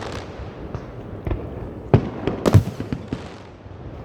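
Aerial fireworks going off in a string of sharp bangs, the loudest about two and a half seconds in, over a continuous low rumble of the display.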